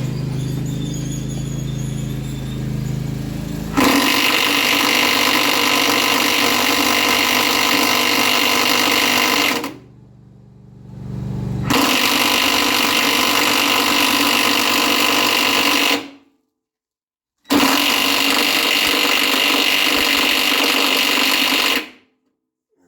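Handheld power tool running in three long steady bursts, each several seconds long, spinning down briefly between the first two; a low hum comes before the first burst.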